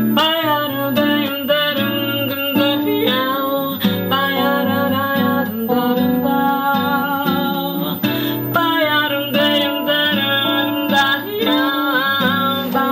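A woman singing a song, accompanied by a nylon-string classical guitar and a second guitar.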